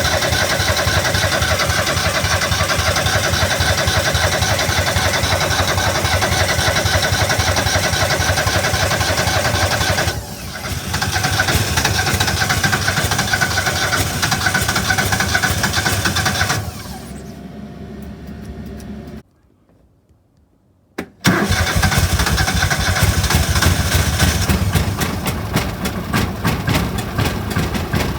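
Argo amphibious ATV engine, after sitting all winter, being started and running roughly. About two-thirds of the way through it fades and stops, then it starts again suddenly and runs on. It only runs a little, a sign of a fuel-delivery problem that keeps it from staying running.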